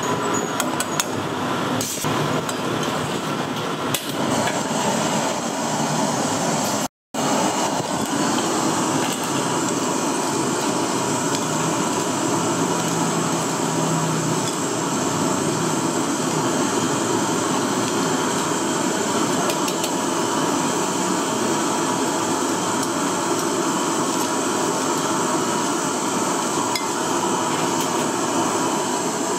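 Street-food kitchen cooking noise: a steady, loud sizzle-like hiss with repeated metal knocks and clinks of utensils. The sound cuts out for a moment about seven seconds in.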